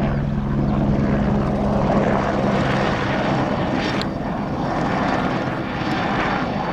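Helicopter flying close by: loud, steady rotor beat with turbine hum. A steady low hum drops out about three seconds in.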